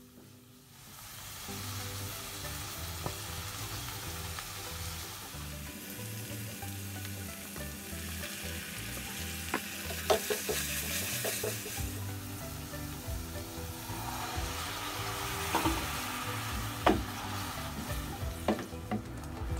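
Chillies, onion and garlic sizzling in hot oil in a wok, stirred with a wooden spatula; the sizzle starts about a second in, and the spatula knocks against the pan a few times.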